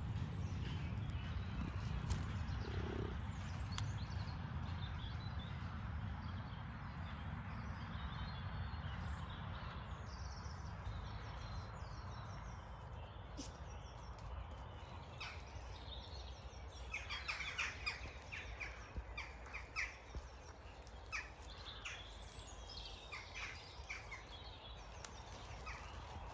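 Dawn chorus of wild birds singing and calling over a steady low rumble, with a run of louder, sharp, short calls in the second half.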